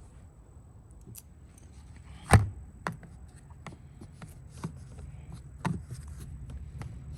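Small screws and hand tools being handled on a work surface: scattered light clicks and taps, with a sharp knock about two and a half seconds in and a couple of softer knocks later.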